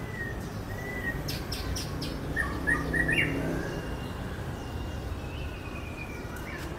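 Caged songbirds chirping: a short note, then a quick run of chirps two to three seconds in, followed by a thin, high, drawn-out whistle.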